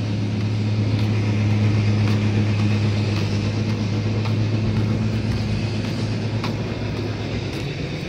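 Engine of road-construction machinery running steadily: a low, even drone that eases off a little in the second half.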